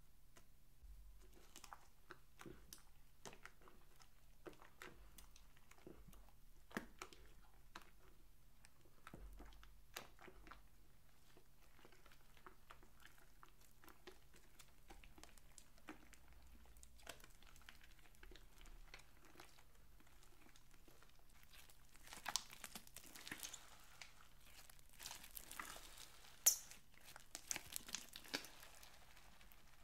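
Sticky clicks and crackles of hands kneading and stretching wet slime, sparse and faint at first, then louder and denser from about two-thirds of the way through as the slime is pulled up in handfuls.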